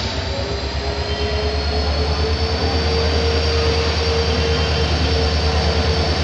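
WDP4D diesel locomotive running as the train pulls in: a pulsing low rumble with a steady whine, growing gradually louder.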